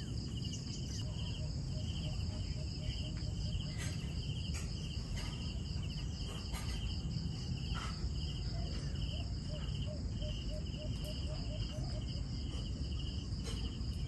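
Insects trilling outdoors in short pulses that repeat a little over once a second, over a steady, higher insect buzz. A low steady rumble lies underneath, with a few faint clicks.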